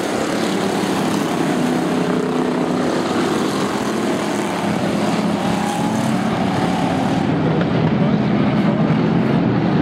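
Engines of a pack of hobby stock race cars running hard as they race by together, a dense, steady engine noise.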